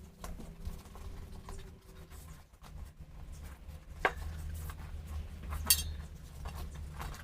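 Scattered clinks and knocks of metal tools and parts being handled during motorcycle wheel work, with two sharper metallic strikes about four and five and a half seconds in, over a low hum.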